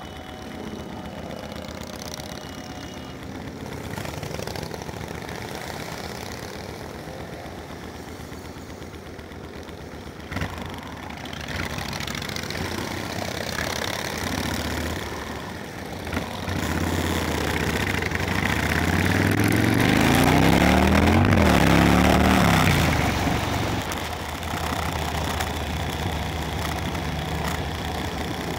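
Motorcycle engines running at road speed, with wind rushing past. About two-thirds of the way through the engine grows louder, its pitch rising and then falling.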